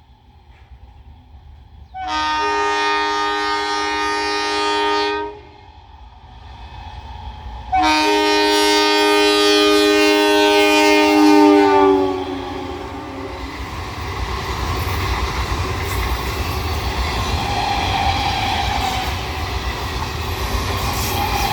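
ICF MEMU train sounding two long horn blasts, the first about three seconds and the second about four, the second dropping in pitch at its end as the train passes. The train then runs through the station without stopping, its passing noise steady to the end.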